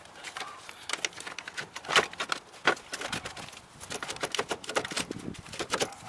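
Irregular light knocks and clicks as a car battery is handled and set down into its tray in the engine bay, its plastic case bumping against the tray and nearby parts.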